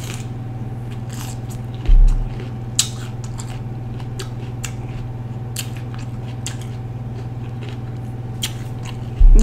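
Raw red bell pepper being bitten and chewed, with crisp crunches now and then over a steady low hum. A dull thump about two seconds in.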